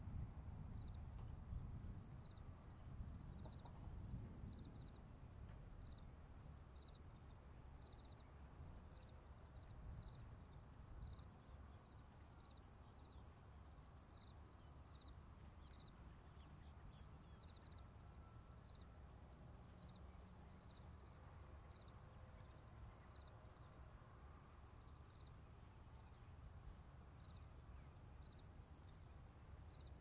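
Faint night insect chorus: a steady high-pitched trill, with a single short chirp repeating every second or so. A low rumble underneath fades away over the first few seconds.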